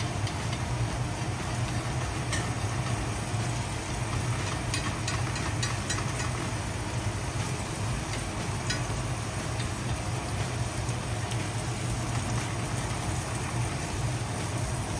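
Filet mignon frying in oil in a stainless pan, a steady sizzle with scattered small pops and crackles, over a steady low hum.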